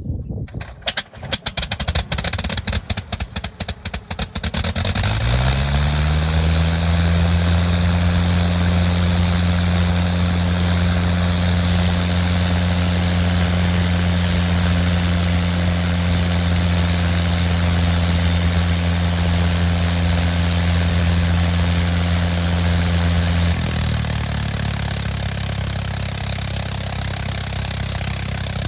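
Gnome Monosoupape nine-cylinder rotary engine of a Fokker E.III reproduction, started by swinging the propeller: it fires raggedly for the first few seconds, picks up speed about five seconds in and runs steadily at speed, then drops back to a lower speed near the end.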